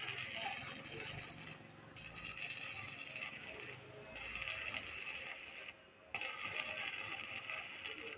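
Metal rolling shutter rattling and scraping as it is worked on, in stretches of about two seconds with brief pauses between them.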